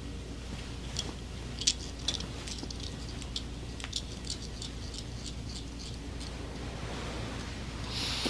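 Quiet room tone with a steady low electrical hum, and faint scattered clicks and rustles from small movements. A soft hiss rises near the end.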